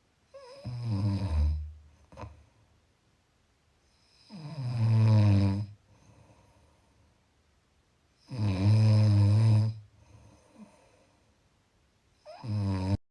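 Snoring: four long, pitched snores at a slow, even rhythm about four seconds apart, with quiet breathing between them. The last snore is cut short.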